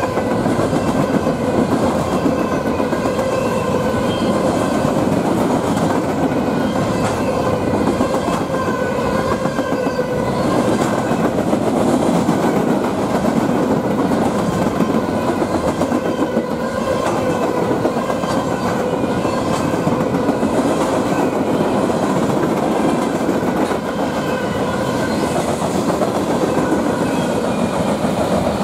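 A train's railroad cars rolling steadily past on the tracks, with a continuous rumble and clatter of wheels on the rails.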